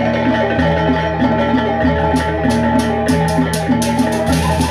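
Sasak gendang beleq gamelan playing. A row of small kettle gongs struck with mallets plays a repeating melody over a low sustained drone, with quick high clashes through the second half.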